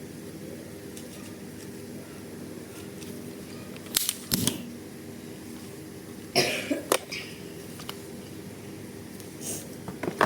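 Plastic toy guns being handled: a few sharp clicks and knocks over a steady low hum. They come as a pair about four seconds in, a noisier cluster around six and a half seconds, and a fainter one near the end.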